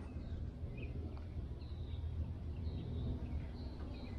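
Faint, scattered bird chirps over a low steady outdoor rumble.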